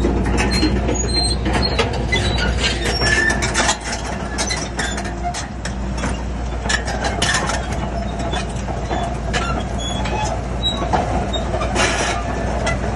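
Heavy diesel earthmoving machinery running with a steady low rumble, overlaid by frequent irregular metallic clanks and rattles.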